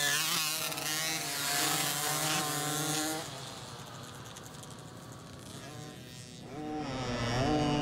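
Small 50cc two-stroke dirt bike engines revving as the bikes pass close by and pull away, fading after about three seconds. Near the end another bike's engine rises in pitch and holds steady.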